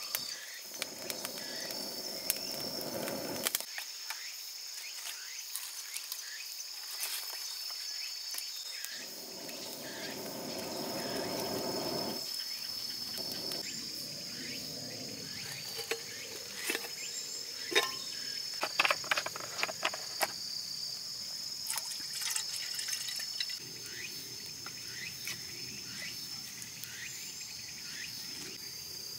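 Insects chirring steadily in the background, with scattered sharp clicks and knocks throughout, a cluster of louder ones about two-thirds of the way through.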